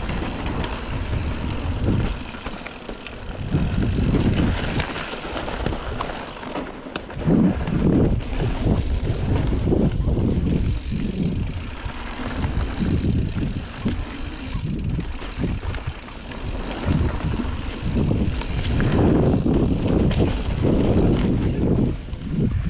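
Mountain bike descending a dirt trail at speed: wind buffeting the GoPro's microphone and tyres rumbling over the dirt, swelling and fading with speed, with an occasional click or clatter over bumps.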